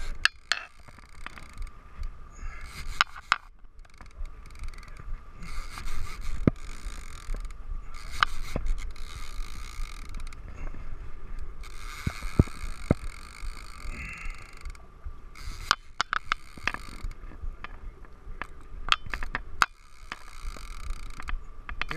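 A conventional saltwater reel being cranked hard to bring in a hooked king mackerel: its gears whir and click in uneven spells as the handle turns, over low wind rumble on the microphone.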